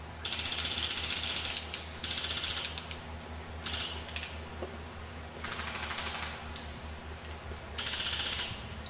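Airsoft electric gun firing on full auto in five short bursts, a fast mechanical rattle of rapid shots.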